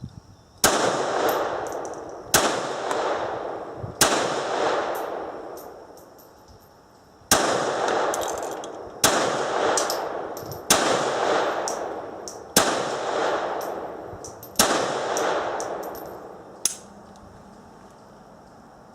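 Eight shots from a CZ-27 pistol in .32 ACP, fired at a slow, even pace about one and a half to two seconds apart, with a longer pause after the third. Each shot has a long fading ring-out. A single sharp click comes near the end.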